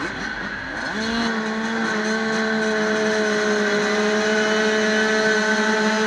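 85cc Yamaha two-stroke dirt-bike engine revved up about a second in and held at high, steady revs behind the starting gate, waiting for the drop. Other bikes' engines run alongside it.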